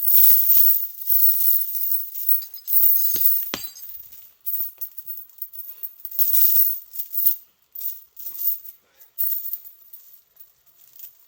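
Steel chain rattling and clinking as it is handled, with two sharp ringing clanks of links striking each other about three seconds in.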